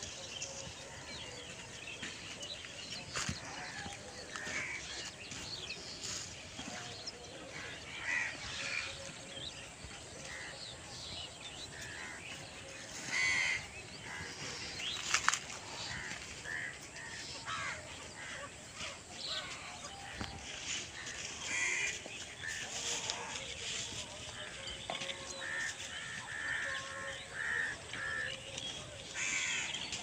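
Birds calling outdoors: many short, scattered calls over a steady background, with a louder burst of calling about thirteen seconds in.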